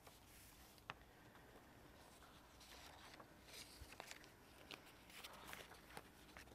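Near silence, with faint rustling of paper sheets being handled and a few small clicks, one sharper click just under a second in.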